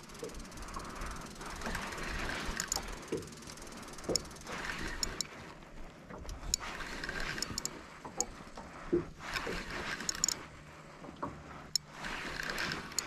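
Shimano Stradic C5000 spinning reel working against a hooked fish: about a second of whirring, every two to three seconds, with sharp clicks in between.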